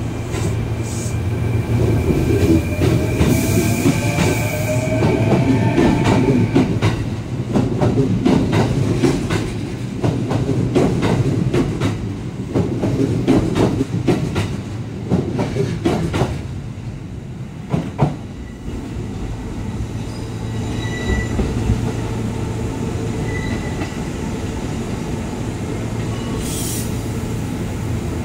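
A Kintetsu electric train pulls out of the station: wheels clack over rail joints and points under a rumble, with a rising motor whine as it speeds up. Then another train runs in with a steady hum and brief wheel squeals on the curved track.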